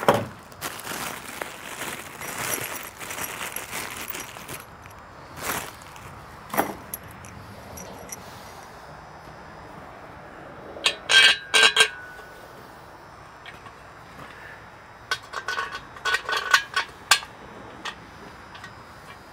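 Steel gate-lift parts and hardware being handled: a knock at the start and a stretch of rustling, then two clusters of sharp metallic clinks with brief ringing, one around the middle and one near the end.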